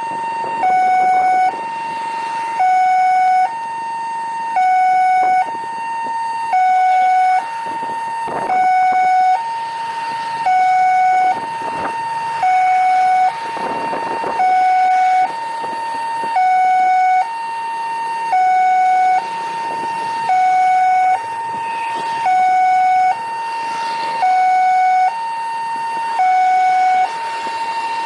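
Two-tone hi-lo siren, alternating steadily between a higher and a lower note about once a second, with no change in pitch or level.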